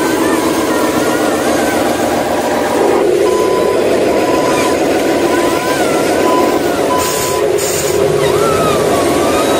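Heavy diesel truck engine running steadily. Short beeps repeat from about three seconds in, and two brief air hisses come near the end.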